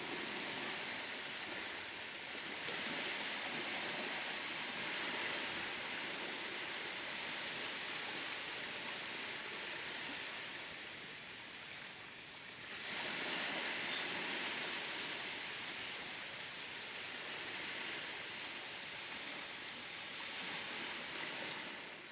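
Ocean waves washing and breaking on the shore of a tropical bay, a steady hiss that swells and eases, with a larger surge about thirteen seconds in.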